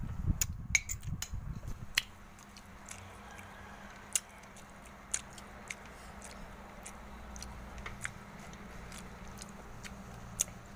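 Chewing close to the microphone for about the first two seconds, then irregular light clicks of a metal spoon against a ceramic plate, roughly one a second, as rice and grilled meat are scooped up.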